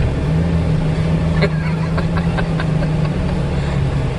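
2004 Jeep Wrangler Rubicon's 4.0-litre straight-six running at a steady pitch while crawling over soft dirt in four-wheel-drive low, heard from inside the cab. A few light rattles come about one and a half to two and a half seconds in.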